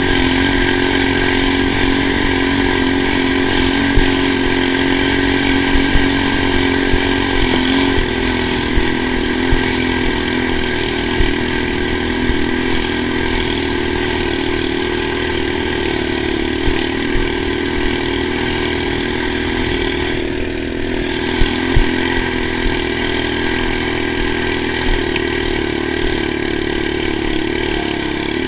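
Single-cylinder 6.5 hp four-stroke engine of a Snowhawk Jr snowbike running steadily under load while riding over snow. Its note changes slightly about seven or eight seconds in and briefly eases about twenty seconds in.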